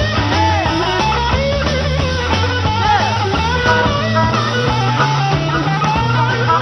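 Rock band playing an instrumental passage: electric guitar, bass and drums, with a harmonica played into a vocal microphone over the top, its notes bending up and down.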